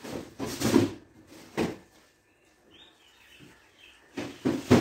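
Fabric rustling and flapping in a few short bursts as cloth is handled and spread out, with faint bird chirps in the quiet middle stretch.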